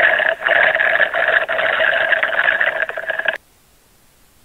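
Drinking sound effect: a loud slurp through a straw that cuts off abruptly about three seconds in.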